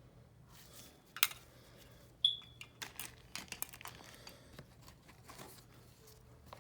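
Small items and packaging being handled: scattered clicks and taps of plastic and metal parts, with plastic wrapping crinkling. The two sharpest clicks come about a second and two seconds in, the second with a brief ring.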